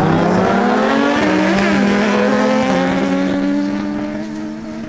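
A Yamaha MT-09 three-cylinder and a Kawasaki Ninja Z1000SX four-cylinder launching side by side off a drag-strip start line at full throttle. Their engine pitch climbs and drops back at each upshift, and the sound fades over the last second as they pull away down the quarter mile.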